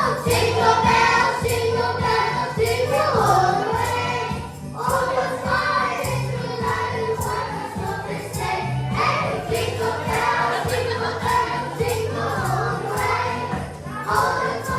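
Choir singing over a band, with bass notes and percussion keeping a steady beat.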